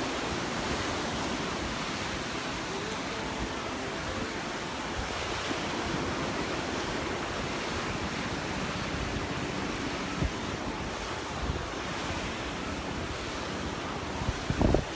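Gulf of Mexico surf washing steadily onto the beach, with wind rumbling on the microphone and a few gusts buffeting it near the end.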